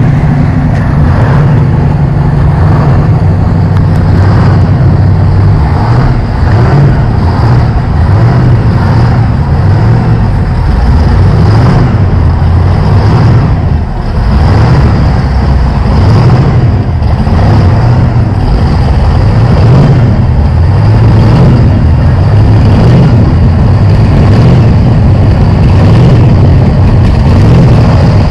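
Performance catamaran powerboat engines idling at low speed with a loud, uneven burble.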